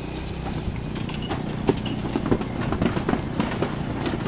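A vehicle engine running low and steady, with many irregular knocks and rattles that come thicker from about a second in.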